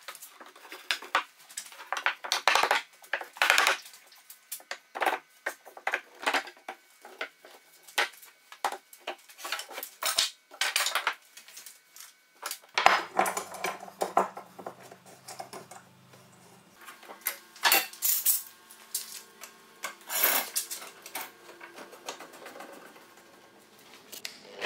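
Wooden workpieces and tools knocking and clattering on a workbench as they are handled: irregular clicks and knocks of varying loudness.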